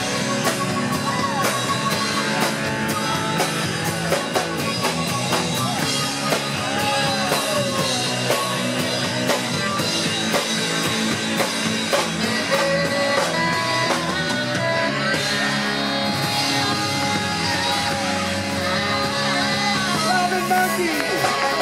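Live rock band playing: electric guitars and drum kit with singing, a steady driving beat.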